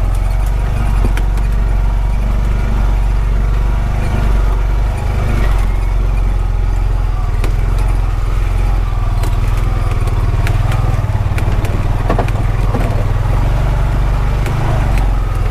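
Honda Pioneer 520 side-by-side's engine running steadily as it drives over a rough dirt road, with scattered clicks and knocks of the machine jolting over bumps.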